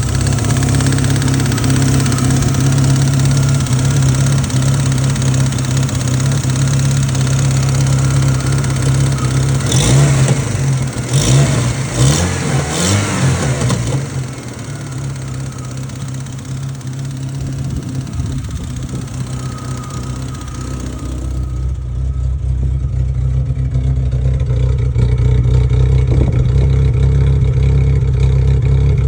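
Vehicle engine running steadily, revved up and down a few times between about ten and thirteen seconds in, then running on with a duller sound. The owner calls it a weird noise, but the fault is not named.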